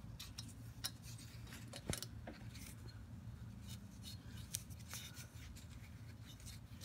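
Faint, scattered clicks and light rubbing of small metal parts under gloved fingers, as a flywheel key is worked into the keyway of a lawn mower engine's crankshaft and flywheel hub, over a low steady hum.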